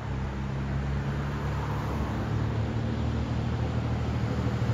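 A motor engine running steadily with a low, even hum that grows gradually louder.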